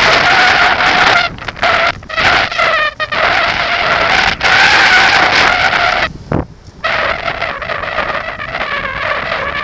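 Air horn sounding a long, loud steady blast broken by a few brief gaps.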